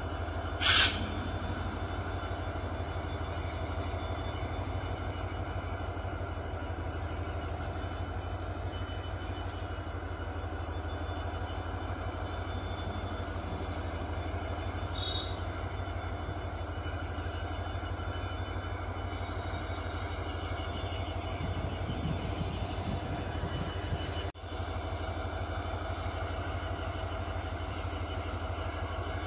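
Diesel locomotive engine of a container freight train running steadily while standing: an even low drone with steady overtones. A brief loud noise about a second in.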